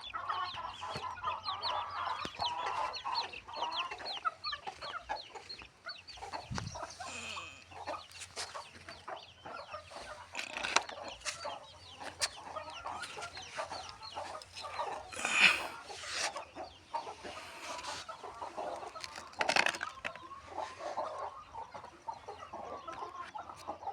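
A flock of desi chickens clucking, with many short overlapping calls and a few louder squawks about 11, 15 and 19 seconds in.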